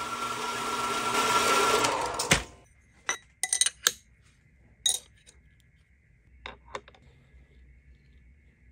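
Horizontal metal-cutting bandsaw cutting through steel bar stock, its steady cutting noise growing louder before stopping abruptly about two seconds in. A few sharp metallic clicks and knocks follow as steel stock is handled in a milling-machine vise.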